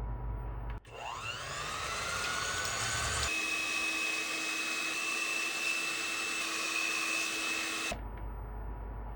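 A small electric motor appliance starts about a second in and whines up in pitch as it spins up. About three seconds in it shifts to a steady higher whine, then cuts off suddenly near the end.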